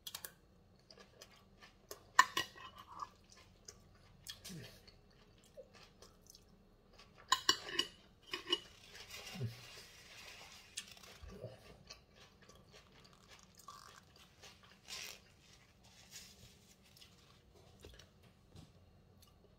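A person chewing a mouthful of salad with the mouth near the microphone: soft crunching and wet mouth sounds, with scattered clicks and taps of a fork and dish.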